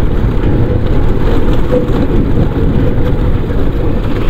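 Motorcycle riding slowly over a rough, unpaved dirt road: a steady, loud low rumble of engine, tyres and wind on the microphone.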